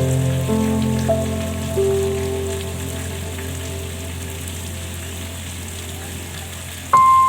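Rain falling in a steady hiss under slow ambient relaxation music. The music is sustained, gently decaying chord notes over a low drone, with a new chord struck about seven seconds in.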